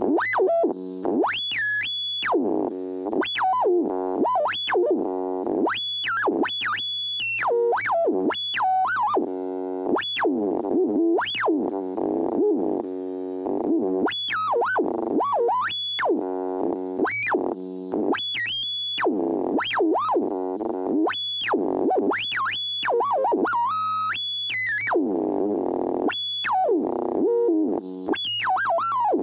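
Radio scanner sweeping across frequencies: a constant run of whistles gliding up and down, short steady high beeps, and buzzy bursts that switch abruptly every second or so.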